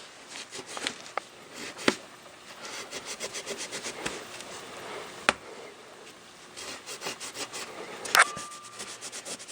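Shop handling noises: rapid back-and-forth rubbing with a few sharp knocks as the cast-iron rear housing of a rotary engine is laid down and wiped dry, and a brief squeak just after the last knock.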